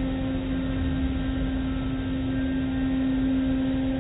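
Automatic car wash tunnel machinery running: a steady hum with one strong held tone over a low rumble.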